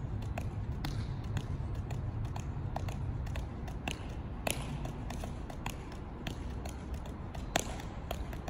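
130-gram juggling balls landing in the hands during a five-ball shower: a quick, uneven run of soft taps over a low steady rumble.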